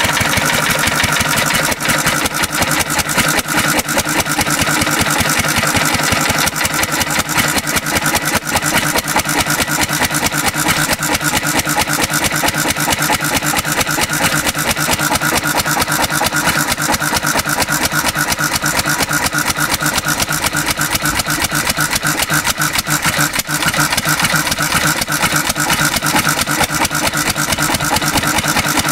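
Antique Cushman Cub throttle-governed one-cylinder four-stroke stationary engine running steadily on almost pure 91% rubbing alcohol, a rapid even beat of firing strokes.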